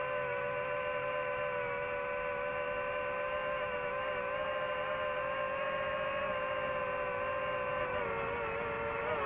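DJI FPV drone's motors and propellers giving a steady multi-tone whine, the pitch wavering and dipping near the end as the throttle changes.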